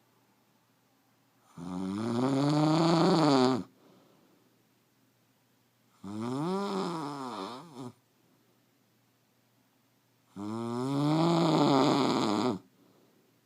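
A woman snoring: three long snores about four seconds apart, each lasting about two seconds, its pitch rising and then falling, with near silence between.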